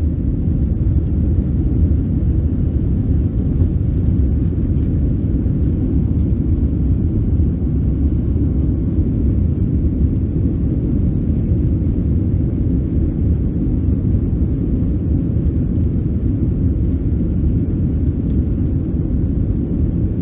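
Steady, loud, deep rumble of jet engine and airflow noise heard inside the cabin of a Boeing 767-300 airliner.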